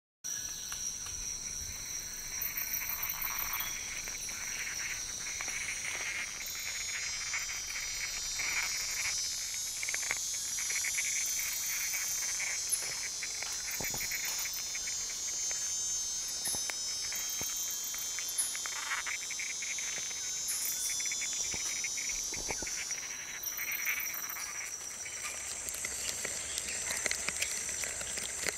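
Recorded Amazonian rainforest soundscape in which a dense, steady chorus of insects shrills on several high pitches, with scattered close clicks and ticks throughout. It begins abruptly.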